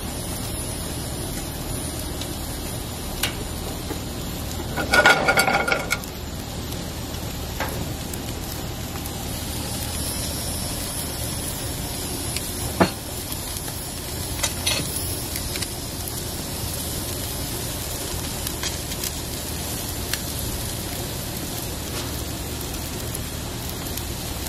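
Steady sizzle and hiss of food cooking on a gas grill: lobster and shrimp on the grates, minced garlic in olive oil in a frying pan beside them. About five seconds in a brief pitched sound, about a second long, stands out as the loudest thing, and a few light clicks come later.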